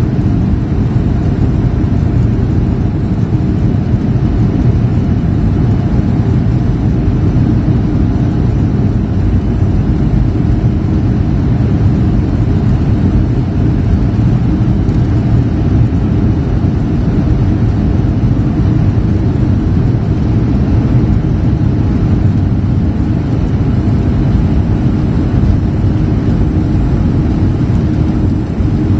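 Boeing 737-300's CFM56-3 jet engines at takeoff thrust, heard from inside the cabin over the wing: a loud, steady rush of engine and airflow noise, heaviest in the low end, through the takeoff roll and the liftoff near the end.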